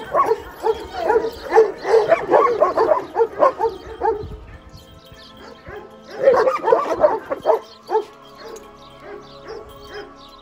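Chained Kangal shepherd dogs barking rapidly at each other in two bouts: a dense run through the first four seconds and another about six seconds in, then only a few single barks.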